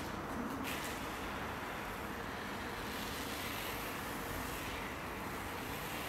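Steady, even background noise with no distinct sounds standing out.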